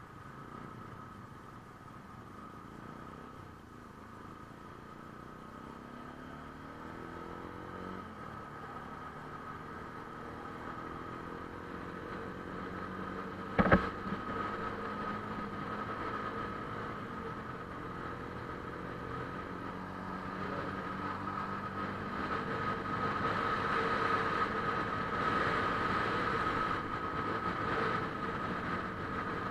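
Motorcycle engine running under way, its pitch rising over the first several seconds as the bike pulls away, with road and wind noise growing louder as it gathers speed. A single sharp knock comes about fourteen seconds in.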